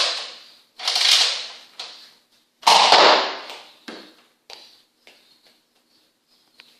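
Nerf Rival Artemis XVII-3000 foam-ball blaster being fired: three loud pops, about one and then two seconds apart with the last the loudest, followed by a few faint clicks.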